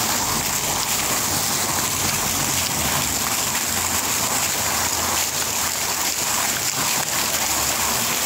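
Street fountain jets splashing steadily into their pool, a constant noise of falling water.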